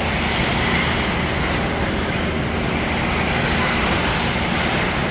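Small RC cars racing around a track: a steady, noisy whir of their motors and wheels with no distinct knocks.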